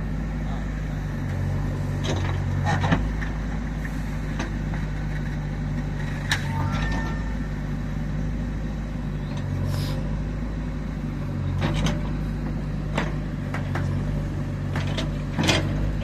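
JCB backhoe loader's diesel engine running steadily, with several sharp knocks and clanks scattered through it as the machine works.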